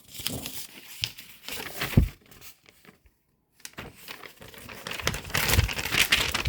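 Crinkling and rustling, with one sharp thump about two seconds in; it stops for a moment around the middle, then rustles again, louder, near the end.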